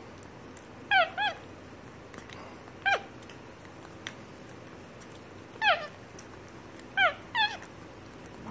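Capuchin monkey giving six short, high-pitched chirping calls, mostly in quick pairs, as it feeds from a juice pouch.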